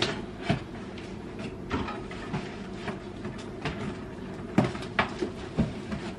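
A cardboard box being cut open and unpacked: scattered knocks, taps and scrapes of cardboard and packing, with the sharpest knocks about four and a half and five seconds in.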